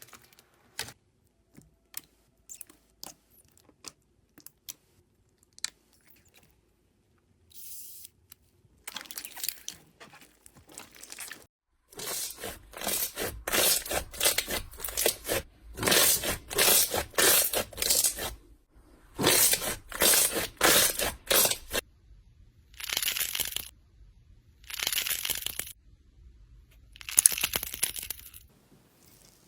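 Slime being worked by hand. It gives scattered small clicks and pops at first, then from about twelve seconds in a run of loud crackling, crunching squeezes, then three separate crunches near the end.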